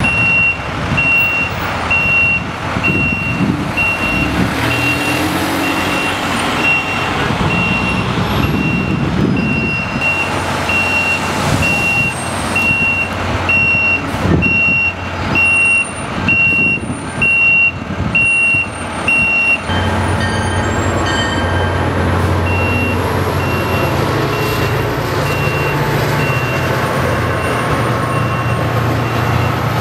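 A truck's reversing alarm beeping steadily, a little over once a second, over engine and street traffic noise. About two-thirds of the way through, the beeping turns faint and a deeper truck engine hum comes up, with the beeps carrying on more quietly.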